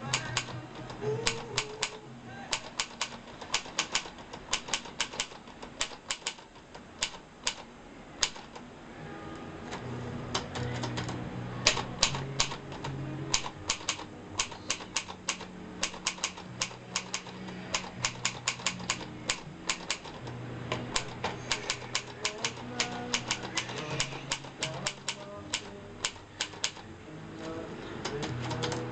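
Groma Brillant-Junior portable manual typewriter being typed on: its keys and typebars strike in quick, irregular runs of sharp clicks. Background music with sustained low notes plays under the typing.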